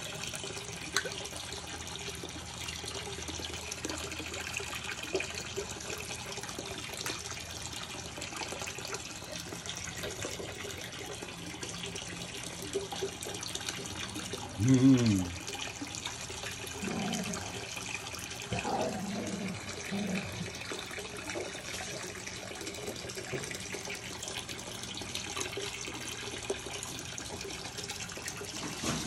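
Steady splashing and trickling of water circulating in a home aquarium, the surface kept churning. About fifteen seconds in, a person makes one short, loud vocal sound, with a few fainter ones soon after.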